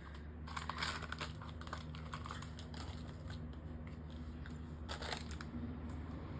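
Thin plastic blind-bag packaging crinkling and tearing as it is worked open by hand, in irregular bursts that are busiest about a second in and again around five seconds. A low steady hum runs underneath.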